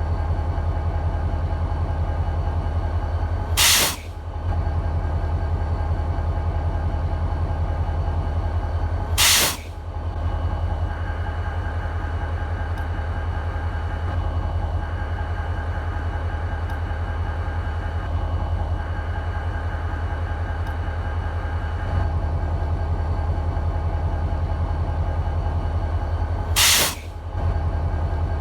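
EMD 16-645 two-stroke V16 diesel of an SD40-2 locomotive idling with a steady low throb. Three short bursts of hissing break in: about four seconds in, again about five seconds later, and once more near the end.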